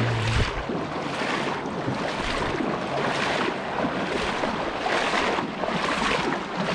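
Shallow river current rushing and splashing past the low-held camera, with wind buffeting the microphone; the rush swells and fades over and over, roughly every half second to second.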